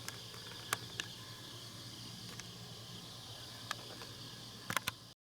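Quiet outdoor ambience with a steady faint hiss and low hum, broken by a few sharp light clicks, three in quick succession near the end, before the sound cuts off abruptly.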